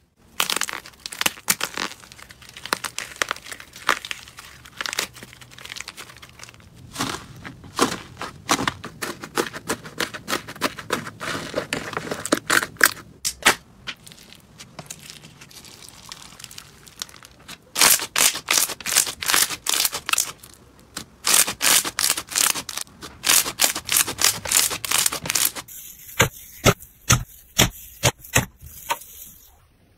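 Slime being pressed and squeezed by fingers, crackling and popping in fast runs of sharp clicks: crunchy hollow slime balls and foam-bead (floam) slime. Near the end the clicks thin out to single sharp pops, a second or less apart.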